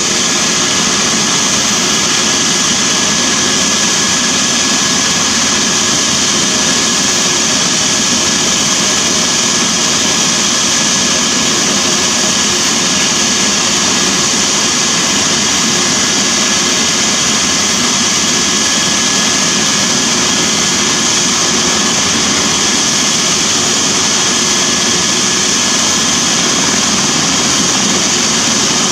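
Eurocopter EC135 T2+ helicopter's twin Turbomeca Arrius 2B2 turboshaft engines and rotor running on the ground ahead of lift-off. It is a loud, steady turbine whine with several high tones over a constant rotor rumble, unchanging throughout.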